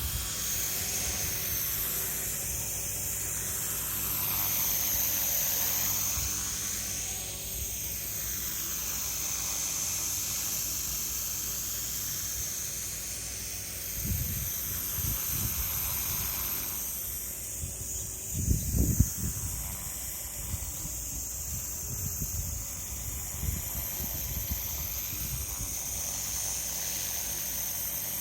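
Small electric RC helicopter (Solo Pro 287) hovering: a steady high-pitched motor and rotor whine. Strong wind buffets the microphone in gusts, the loudest about two-thirds of the way through.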